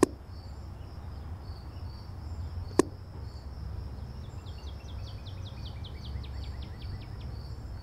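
Two sharp cracks about three seconds apart, shots from a semi-auto EDgun Leshiy 2 airgun, over steady cricket chirping. A falling run of chirps comes near the middle.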